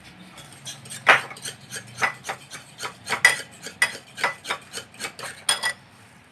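Metal utensil clinking repeatedly against a dish, about three to four quick clinks a second for around five seconds.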